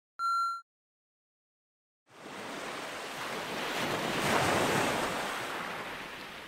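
A short electronic beep just after the start; then, after about a second and a half of silence, a rushing water sound like surf swells up, peaks and slowly fades.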